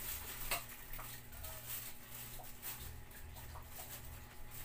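Faint, scattered light clicks and taps over a steady low hum, from cats and a dog moving about and eating at a bowl on a tiled floor.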